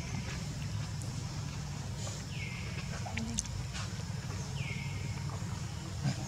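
A bird repeating a short call that slides down in pitch and levels off, twice, about two seconds apart, over a steady low rumble and a few light clicks.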